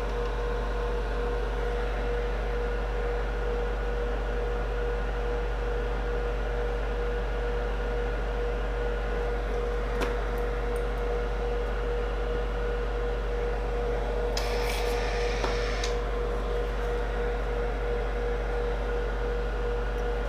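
Steady electrical hum of running bench equipment with a constant mid-pitched whine. A faint click comes about ten seconds in, and a short hiss about fourteen seconds in.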